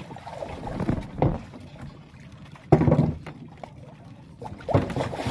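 Knocks and bumps on a small fishing boat, three sudden louder hits over a background of water and wind noise.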